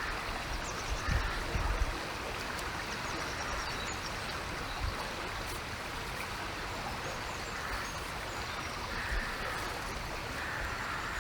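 River water running past a bridge, a steady rushing flow of a river in flood. A few low bumps break in during the first two seconds.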